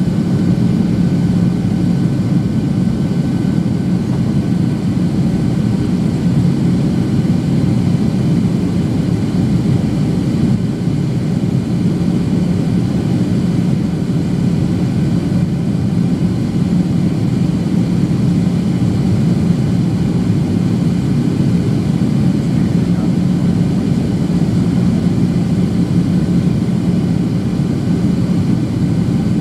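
Steady cabin noise inside a Boeing 737-800 in flight: the CFM56 jet engines' even low hum under a rush of airflow, holding the same level throughout.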